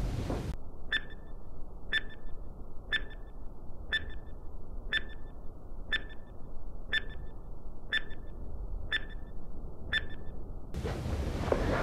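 Countdown-timer sound effect: ten short, high beeps, one a second, over a faint low hiss.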